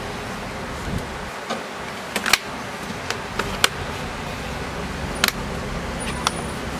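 Asus laptop keyboard keys being pressed: a few irregular, separate key clicks, as a newly fitted replacement keyboard is tested, over a steady background hiss.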